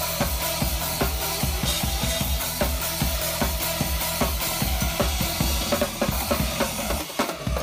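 Drum kit played fast, with a dense run of bass drum strokes under snare hits and cymbals.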